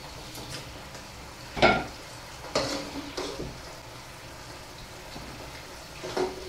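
Chicken pieces sizzling in hot vegetable oil in a non-stick pan. A slotted spoon scoops them out and knocks against the pan a few times, loudest about one and a half seconds in.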